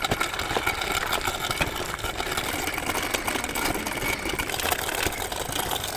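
Electric motor and gearbox of an RC crawler truck whining steadily as it drives over gravel towing a loaded trailer, with a constant crackle of small stones under the tyres.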